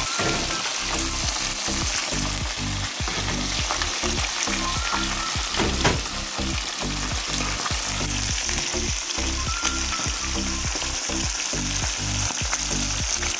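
Chicken wings deep-frying in hot cooking oil: a steady sizzle with small pops and crackles throughout.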